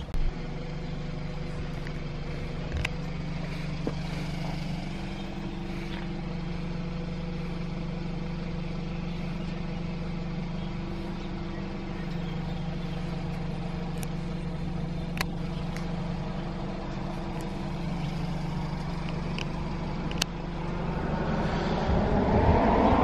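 Car engine idling steadily, with a few faint clicks. Near the end a louder rush of noise builds up.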